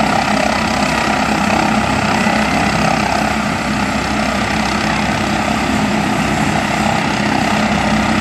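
McDonnell Douglas MD902 Explorer helicopter, a twin-turbine NOTAR type with no tail rotor, running on the ground with its main rotor turning. The turbine and rotor noise is loud and steady, with a few held tones over a constant rush, just before lift-off.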